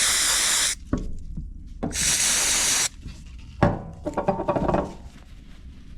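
Aerosol can of disc brake cleaner sprayed onto a brake caliper in two hissing bursts of about a second each. It is followed by a knock and about a second of rubbing.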